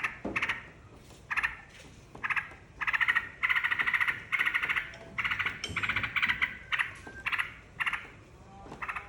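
Yellow-vented bulbul (trucukan) calling: a string of short, fast chattering phrases, each a fraction of a second long. The phrases come nearly back to back from about three to six and a half seconds in.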